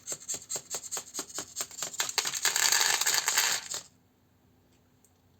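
Dry cat kibble tumbling out of a servo-turned grain-dispenser feeder. It starts as a quick run of separate clicks, about six a second, then builds into a dense rattling pour that stops abruptly just before four seconds in.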